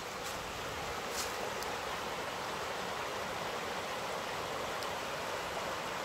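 Mountain river rushing steadily over stones.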